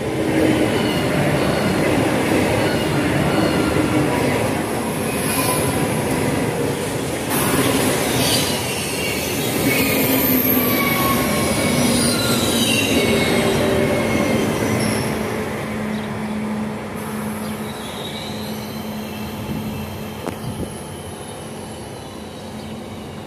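Frecciarossa high-speed train passing through the station at speed close by: a loud rushing run of wheels and air, with high whining tones that slide down in pitch partway through. The noise eases off over the last several seconds as the train clears.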